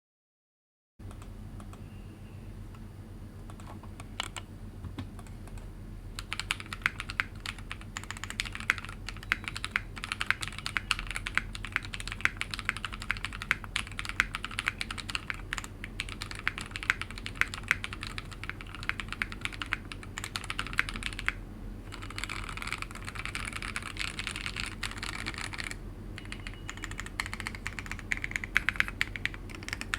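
Typing on a mechanical keyboard with lubed Raed switches, PBT Cherry-profile keycaps and a polycarbonate plate in a resin case. A few scattered keystrokes come first, then fast continuous typing from about six seconds in, broken by two short pauses in the second half.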